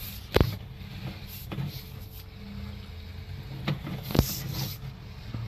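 Sewer inspection camera being pulled back through a 6-inch lateral pipe: a steady low mechanical hum with two sharp knocks, about half a second in and about four seconds in.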